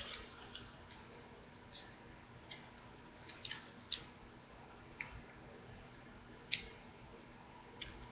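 Faint scattered clicks and light rustles of small items being handled by hand, over quiet room tone; the sharpest click comes about six and a half seconds in.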